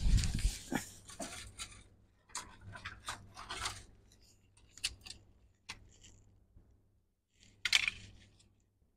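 Irregular clicks, taps and short rustles of small tools and parts being handled, with the louder rustles near the start, about three and a half seconds in and near the end.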